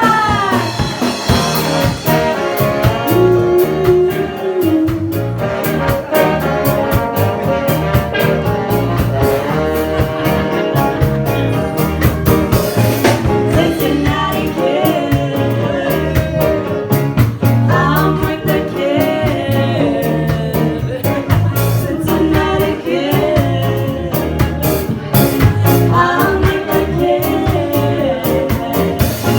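Live band playing with a singer, over a steady drum beat.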